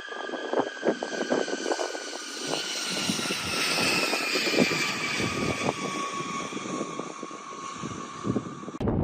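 B-52H bomber's turbofan jet engines passing by: a crackling rumble with a whine that falls slowly in pitch. It cuts off suddenly near the end, giving way to wind noise on the microphone.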